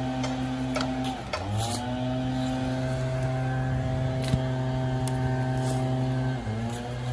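An engine running at a steady speed, its pitch sagging briefly and recovering twice, about a second in and again near the end, as if taking on load. A few faint clicks sound over it.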